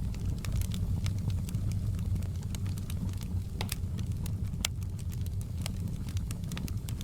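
Fire in a fireplace crackling: irregular sharp pops and snaps, several a second, over a steady low rumble.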